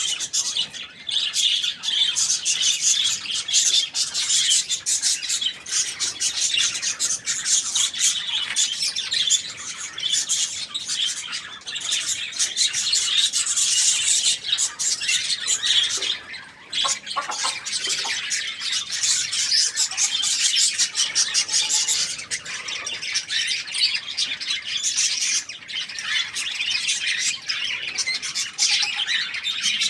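Many small birds chirping and chattering together in a continuous, rapid stream of high-pitched notes, with a brief lull about halfway through.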